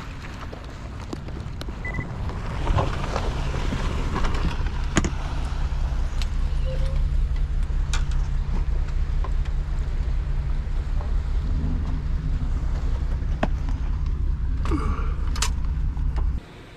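Steady low rumble of a car running, engine hum and road noise, building up about two seconds in and cutting off abruptly near the end, with a few scattered clicks.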